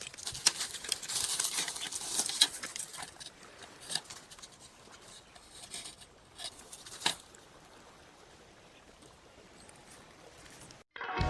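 Scraping, rustling and a few sharp clicks of small hard parts being handled, fading to faint hiss in the second half.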